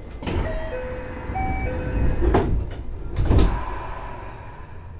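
A 521-series electric train's door-closing chime, a short run of tones at changing pitches, followed by the sliding doors shutting with two thumps about a second apart.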